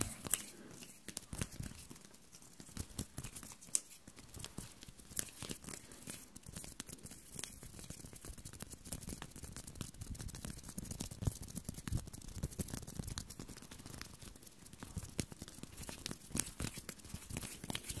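ASMR hand sounds close to the microphone: palms and fingers rubbing and fluttering, making a dense, irregular stream of crackly rustles and small clicks.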